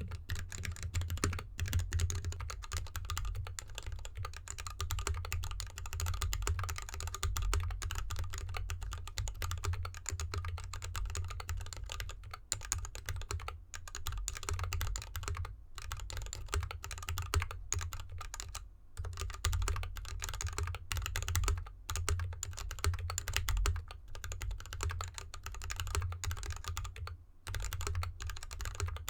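Fast, continuous typing on a GK64X 64-key mechanical keyboard in an anodized aluminium case with dampening foam, lubed Gateron linear switches and DSA keycaps, set on a desk mat over felt fabric. A dense run of keystroke clacks, broken by a few brief pauses.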